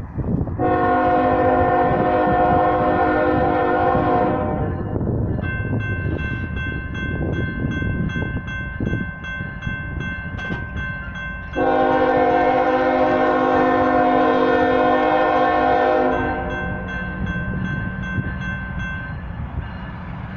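Nathan K5-series five-chime air horn on an approaching freight locomotive sounding two long blasts for the grade crossing, the second starting about seven seconds after the first ends. Between and under the blasts the crossing signal's bell dings steadily, about twice a second, over the low rumble of the train.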